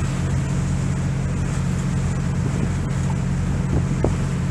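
Longtail boat's engine running steadily with a constant low hum while the boat is underway, over a steady rushing noise of water and wind.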